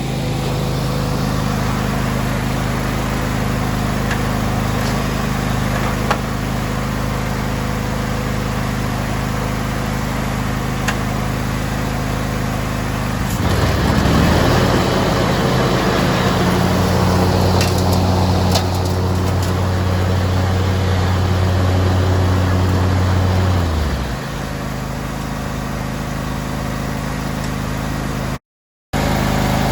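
John Deere X300 lawn tractor engine running steadily. About 13 seconds in, the sound changes pitch and grows louder for around ten seconds, then settles back to its earlier steady note. It cuts out briefly near the end.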